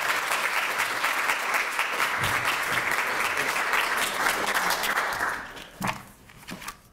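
Audience applauding, dying away about five and a half seconds in, followed by a light knock or two.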